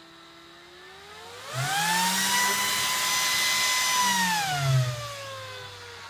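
Dell PowerEdge R710 server fan, speed set by a fan controller knob, spinning up from a low hum to a loud high whine with rushing air, holding at top speed for about two seconds, then winding back down to a lower whine.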